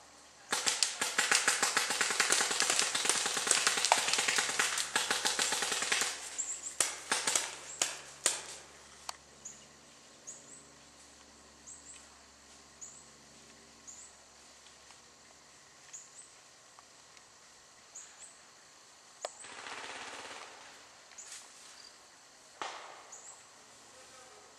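Paintball markers firing in rapid volleys for about five seconds, then scattered single shots, then only an occasional faint pop.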